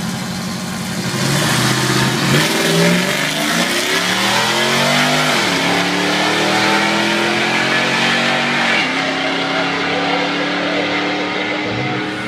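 Drag race launch: vehicles, a pickup truck among them, accelerating hard away from the start line. Engine pitch climbs and drops back at upshifts about two, five and nine seconds in.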